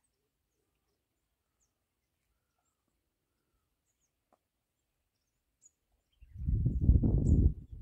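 Faint, scattered high bird chirps over near silence, then about six seconds in a loud, irregular low rumble of wind buffeting the microphone.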